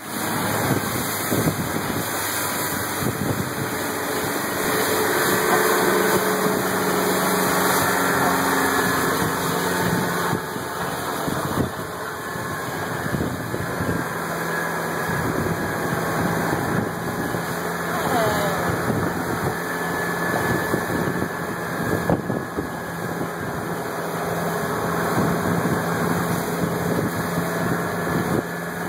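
Motorboat engine running steadily while the boat is under way, with a constant rushing noise over it.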